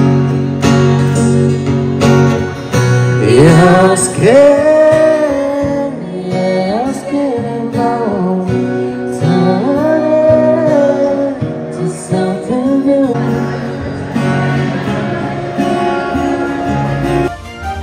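Live acoustic guitar strummed in a steady pattern, with a woman singing a melody over it from about three seconds in.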